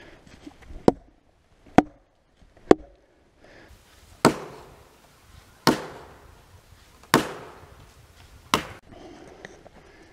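Felling wedge being driven into the back cut of a large dead oak, to tip the tree over where the saw bar could not reach through. Three sharp blows about a second apart, then four heavier blows with a ringing ring-out about a second and a half apart.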